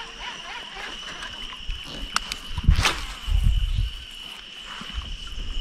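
Steady high-pitched insect drone, with a few sharp clicks and low knocks and rumbles about two to three seconds in.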